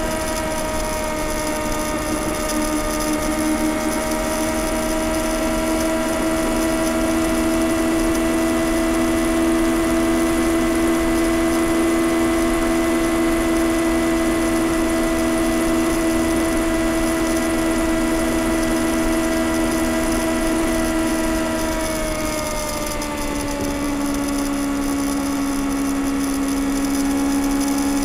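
2021 Kawasaki ZX-6R's 636 cc inline-four on its stock exhaust, running at a steady highway cruise with a high, even engine note. About three quarters of the way through, the note slides down over a second or two and settles at a lower steady pitch as the revs come down.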